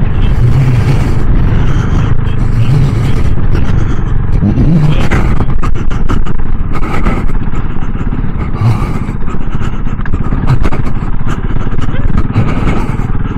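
KTM 690 Enduro R's single-cylinder engine running under load, revs rising and falling, over loose gravel, with many short knocks and scrapes from the rough surface.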